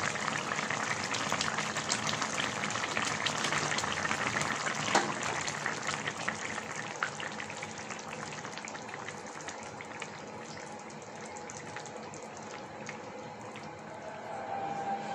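Thick sponge-gourd and fish curry bubbling in a pan: a steady hiss with many small pops, which grows quieter over the second half.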